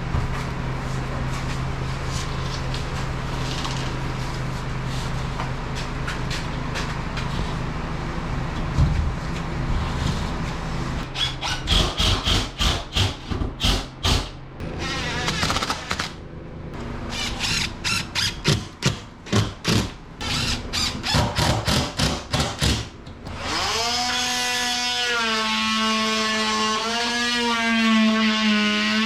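Power drill running: a steady spell, then many short stop-start bursts as drywall screws are driven. About 23 seconds in, a sustained pitched tune comes in.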